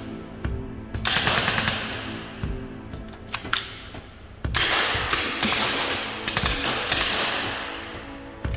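Milsig M79A2 high-pressure-air foam dart blaster firing on full auto: two bursts of rapid pneumatic pops with a rush of air, the first about a second in and the second near the middle, each trailing off in fading hiss. Background music runs underneath.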